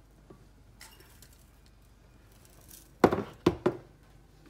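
Glass clinking: three sharp knocks of a glass jar, close together, about three seconds in, after a quiet stretch.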